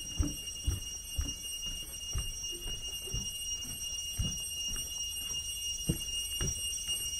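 Footsteps on a wooden plank boardwalk: hollow knocks about two a second, over a steady high-pitched whine.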